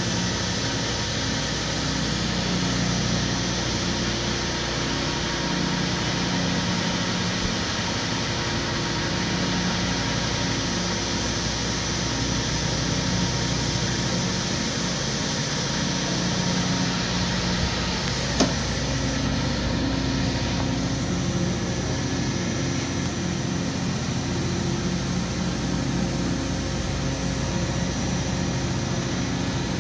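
Steady machinery hum with several low tones that waver, and a single sharp click about eighteen seconds in.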